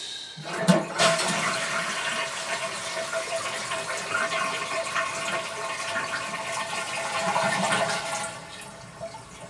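Toilet flushing: a loud rush of water with a steady tone running through it, starting about half a second in and dying down shortly after eight seconds.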